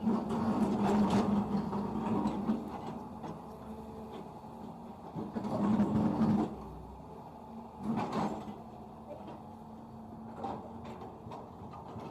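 Caterpillar 320D2 excavator's diesel engine running with a steady hum, swelling louder under hydraulic load twice for a second or two and once briefly, with scattered knocks and rattles as it works aggregate.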